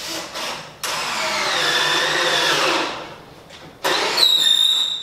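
Power drill driving screws into a wooden Adirondack chair, running in two bursts: one of about two seconds starting about a second in, then another near the end with a high whine that rises in pitch.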